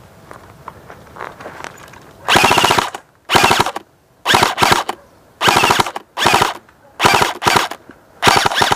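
Airsoft rifle firing about nine short full-auto bursts, each a fast buzzing rattle lasting about half a second or less, starting about two seconds in.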